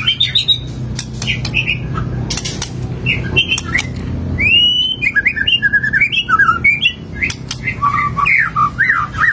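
Caged white-rumped shama (murai batu) singing vigorously. It gives a quick run of short, varied whistled and harsh phrases, the 'isian' of calls it has learned. The song gets busier from about halfway through, and a low steady hum lies under the first half.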